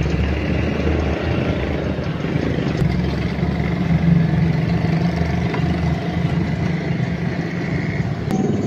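An engine running steadily at idle, a low even hum with no change in speed.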